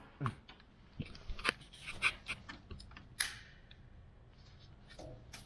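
Light clicks and scrapes of a plastic pry tool working at the plastic lower trim piece of a truck grille, a scatter of them in the first three seconds, then only faint handling.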